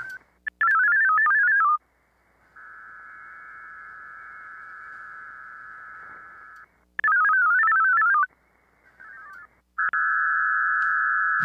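VARA HF digital-mode modem signals on a 40-metre amateur radio link. Two short, loud warbling bursts of rapidly hopping tones, about half a second in and about seven seconds in, alternate with steady buzzing bands of many tones held together. The first band is fainter and lasts about four seconds; the second is loud and starts about ten seconds in.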